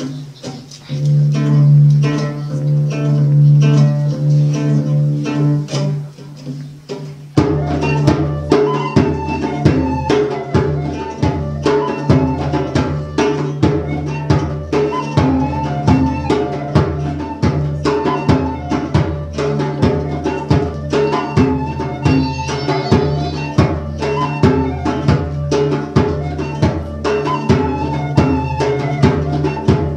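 Live folk music: a sustained low drone with a slow melody over it, then about seven seconds in a goblet drum, a plucked lute and a high flute melody come in together, in a steady dance rhythm.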